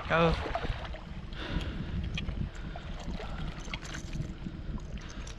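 Shallow seawater sloshing and splashing around someone wading, with a steady low rumble underneath, scattered small clicks, and a few hissy swells of water. A spoken word or two at the very start.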